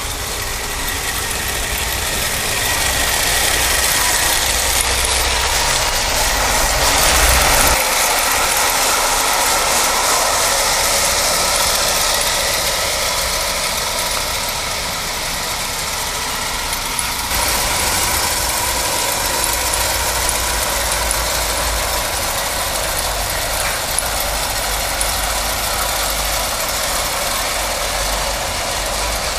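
Lionel postwar 682 Pennsylvania steam turbine O-gauge electric locomotive and its passenger cars running on three-rail track: a steady mechanical rolling clatter of metal wheels on the rails with motor noise. It grows louder and then changes as the train passes.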